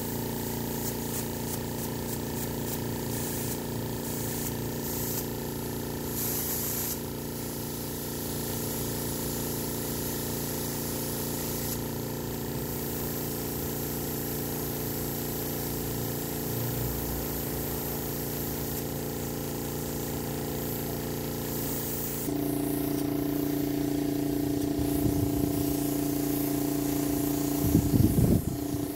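Spray gun spraying varnish in a steady hiss, over a steady machine hum that steps up in pitch and grows louder about three quarters of the way through. A short run of louder thumps comes near the end.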